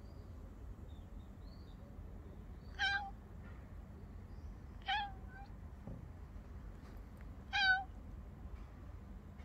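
Domestic cat meowing three times, short calls about two seconds apart.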